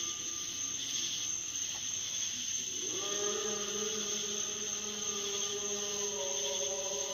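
A long, low droning tone with several overtones, the kind of sound presented as a mysterious noise from the night sky. It rises in pitch about three seconds in and then holds steady over a constant high hiss.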